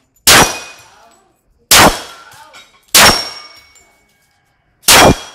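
Four pistol shots from a Para Ordnance .45, unevenly spaced over about five seconds, each followed by a short metallic ringing.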